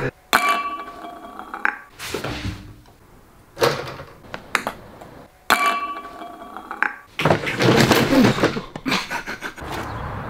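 A ping-pong ball bouncing with sharp clicks and clinking against a clear glass, with a brief ringing. There is a louder, noisier stretch about seven to nine seconds in.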